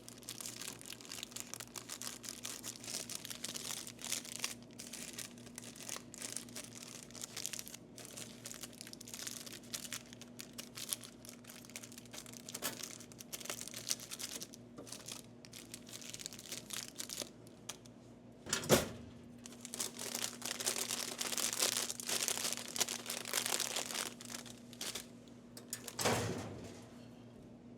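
Plastic snack wrappers and packaging being handled, crinkling and rustling continuously with some tearing, over a steady low hum. Two louder knocks come near 19 s and again about 26 s in.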